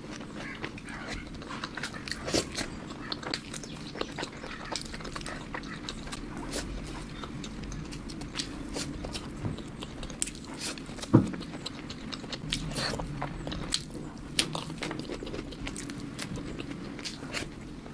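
Close-miked eating: bites and chewing of crisp street food, with many small crunches and clicks over a steady low background hum. One stronger thump about 11 seconds in.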